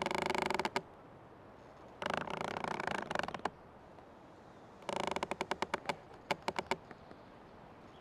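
Old tree creaking: three drawn-out creaks, the first at the very start, the second about two seconds in, the third about five seconds in, breaking up into a quick run of separate clicks.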